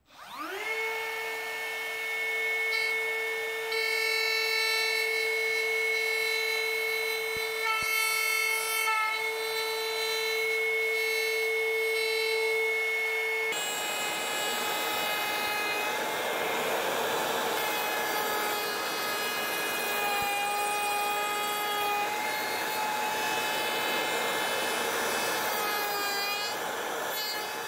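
Makita cordless trim router with a straight bit spinning up with a quick rising whine, then running at a steady high pitch. About 13 seconds in the sound changes abruptly to the router cutting a slot through wood, the whine joined by a rougher rasp of the bit in the timber.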